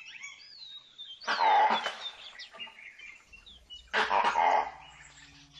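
Two short, harsh calls from dholes (Indian wild dogs), each a little under a second long and about two and a half seconds apart, with thin high bird whistles between them.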